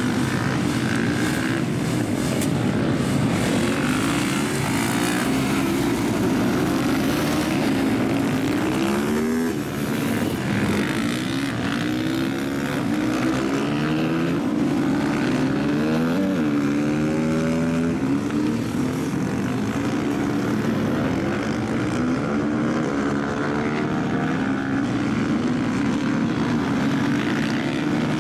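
Several supermoto motorcycle engines running on a race track, overlapping into a continuous drone, their pitch repeatedly rising and falling as the riders brake for corners and accelerate out of them.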